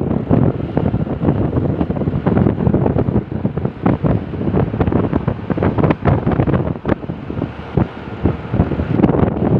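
Wind buffeting the microphone over loud roadside vehicle noise, an irregular crackling rumble with no horn sounding.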